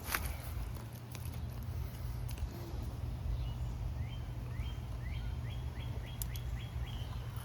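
A bird calling a run of quick, downward-slurred chirps, about three a second, starting about halfway through, over a steady low hum. A few sharp clicks.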